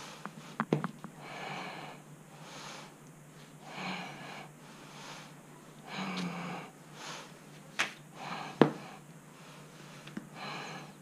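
A person breathing heavily close to the microphone, a breath roughly every second, with a few sharp knocks, the loudest two about three-quarters of the way through.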